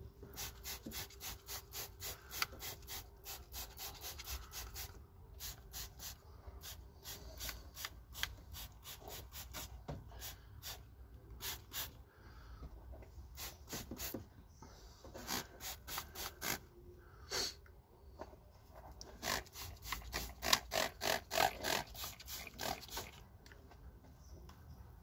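Hand trigger spray bottle squirting degreaser onto an engine, in quick repeated pumps of about three a second. The pumps come in several runs with short pauses between them.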